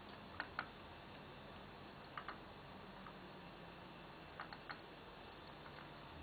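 Civet feeding at dinner leftovers: faint sharp clicks, mostly in quick pairs, every couple of seconds over a low hiss.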